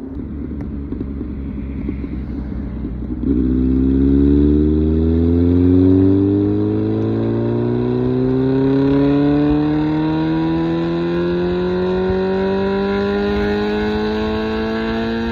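Kawasaki Z900's 948cc inline-four through an SC Project exhaust: after about three seconds of quieter, rougher running, the throttle opens with a sudden jump in loudness and the engine note climbs slowly and steadily as the bike accelerates in one long pull.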